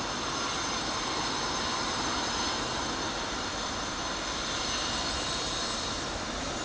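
NIR class 201 diesel-electric locomotive running light engine, its turbocharged EMD 710 two-stroke V12 giving a steady rumble with a high whine on top.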